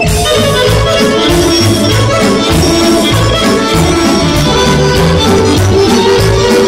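Live Serbian kolo played by a folk band: violin and accordion carry a fast tune over drums and keyboard, with a steady beat.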